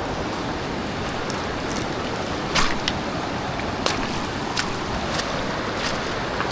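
Mountain river rushing steadily, with a handful of sharp knocks or clicks over it, the loudest about two and a half seconds in.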